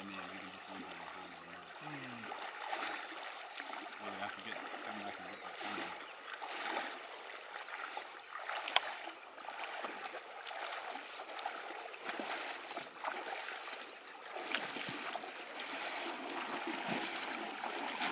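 Legs wading and splashing through a shallow, muddy swamp stream in a run of irregular sloshes, with one sharper click near the middle. A steady high-pitched insect drone goes on behind it.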